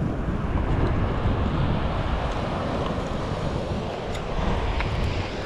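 Wind buffeting the microphone with a low rumble, over the steady wash of surf breaking on the beach.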